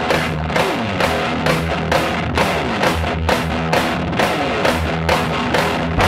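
Rock music with a steady beat, about three beats a second.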